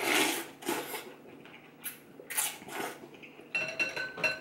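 Noodles of bún bò Huế slurped from a bowl: a loud slurp at the start and a shorter one about two and a half seconds in. Near the end, a few light ringing clinks of eating utensils against the ceramic bowl.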